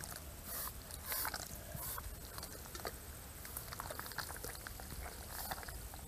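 Bare feet squelching in soft wet mud, a run of uneven steps.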